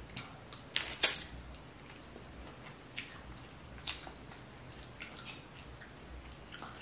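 Snow crab leg shells cracking and snapping as they are broken apart, heard as separate sharp clicks, the two loudest about a second in. Near the end kitchen scissors snip into a crab leg.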